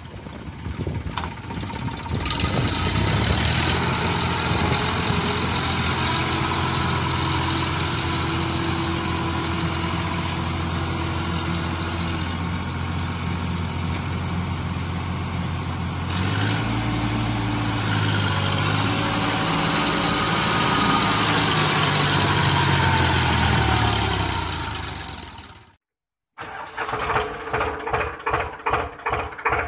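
Tractor engine sound running steadily, shifting in pitch a few times. It cuts off about 26 s in, and a different chugging sound follows at about three beats a second.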